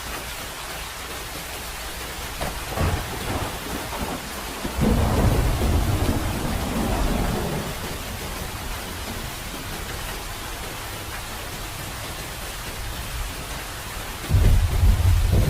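Steady rain falling, with rolls of thunder: a low rumble builds about three seconds in and swells loudest for a few seconds, and another sharp, deep clap of thunder breaks out near the end.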